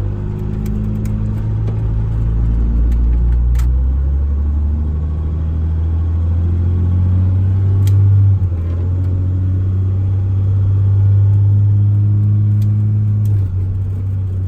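12-valve Cummins 5.9 L inline-six diesel through a 5-inch straight pipe, pulling under load as the truck accelerates. Its engine note climbs, then drops abruptly about eight seconds in and again near the end as the manually shifted 47RE automatic changes up a gear; the last shift is hard and snappy.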